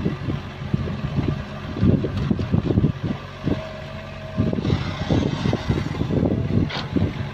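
Sumitomo hydraulic excavator digging and dumping soil: its diesel engine runs under load with irregular knocks and scrapes from the bucket in the earth, and a brief steady whine near the middle.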